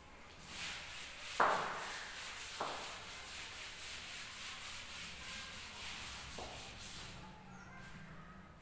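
Chalkboard duster rubbing back and forth across a blackboard, erasing chalk, with a few sharp knocks, the loudest about a second and a half in.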